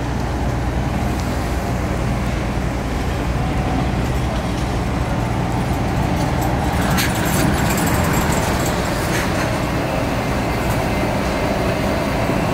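Articulated city bus approaching and passing close by, its engine a steady low hum over street traffic noise, with a few sharp clicks about seven and nine seconds in.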